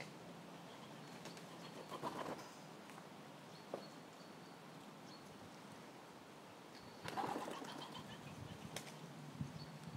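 Faint outdoor ambience with birds: thin high chirps here and there, and two brief louder noises, about two seconds in and again at about seven seconds.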